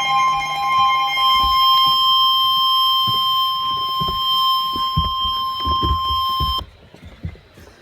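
NOAA Weather Radio's 1050 Hz warning alarm tone: a steady, loud, high alarm tone that signals a warning, here a flash flood warning. A second, lower tone under it stops about two seconds in, and the alarm tone cuts off abruptly near the end, leaving faint hiss. Irregular low thumps run underneath.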